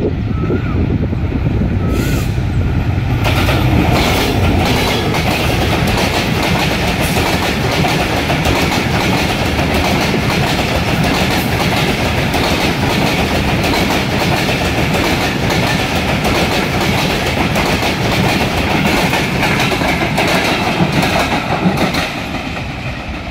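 Diesel-hauled express passenger train with INKA coaches running through a station at speed. The noise builds over the first few seconds as the locomotive nears, then the coaches' wheels rumble and clatter steadily along the rails, and the noise drops off sharply about a second before the end as the last coach clears.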